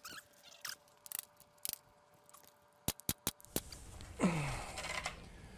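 A pneumatic stapler firing half-inch staples into a wooden door stop: about eight sharp clicks in quick runs over the first three and a half seconds. About four seconds in, a short low grunt-like voice sound is heard.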